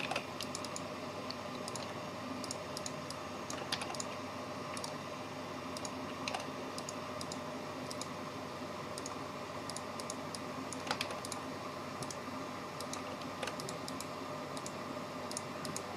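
Irregular, faint clicks of a computer keyboard and mouse, a few standing out more sharply, over a faint steady hum.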